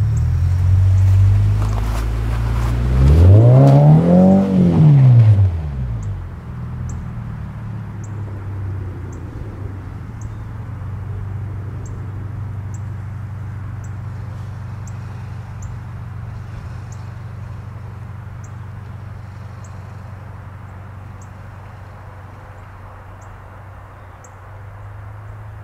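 Subaru BRZ's flat-four engine revving up and back down over about two seconds, a few seconds in, as the car slides up a snowy driveway. It then settles into a low steady drone that slowly fades, with faint regular ticks about once a second.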